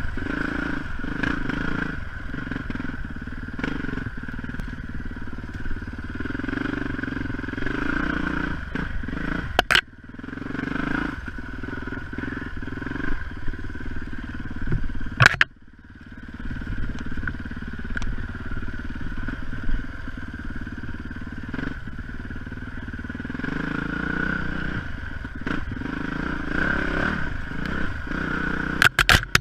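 Yamaha WR dirt bike engine running steadily as the bike rides a rough trail, with a few sharp knocks, three times, over the engine note.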